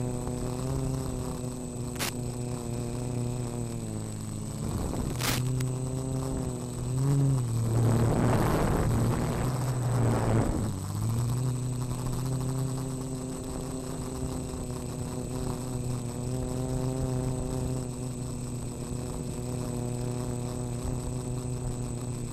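F330 quadcopter's four Turnigy SK3 brushless motors spinning 8045 propellers, a steady buzzing hum whose pitch sags and climbs as the throttle changes. Midway there is a louder rushing swell of air noise while the pitch drops, and a thin high whine runs underneath.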